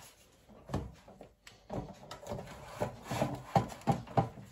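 Air fryer basket being handled, with irregular knocks and scraping that start about a second in and grow busier.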